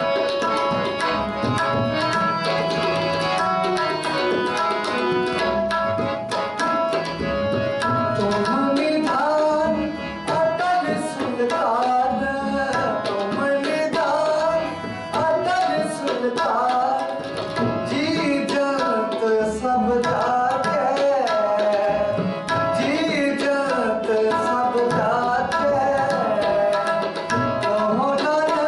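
Shabad kirtan: a harmonium plays a held, reedy melody, with a tabla pair beating out a steady rhythm and a man singing along.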